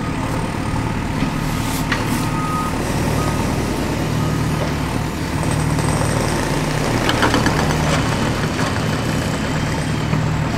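A heavy vehicle's engine running steadily, with a short beep about two and a half seconds in.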